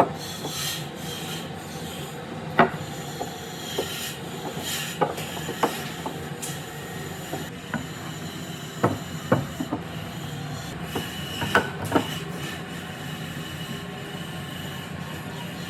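Hand work on wood: rubbing and scraping of a tool against wood, with scattered sharp knocks, over a steady low hum.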